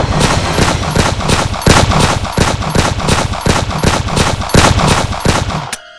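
Rapid gunfire sound effects, pistol shots at about three a second. They cut off suddenly just before the end, followed by one last shot.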